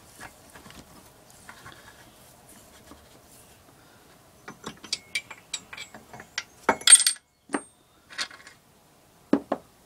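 Sharp metal clicks and clinks of the camshaft and its gear being worked out of an 8 hp Briggs & Stratton engine block. After faint handling noise, an irregular run of clicks starts about halfway, with the loudest clatter soon after and two more clicks near the end.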